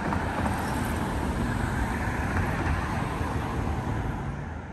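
City street traffic: a car driving past, its road noise swelling and then fading near the end.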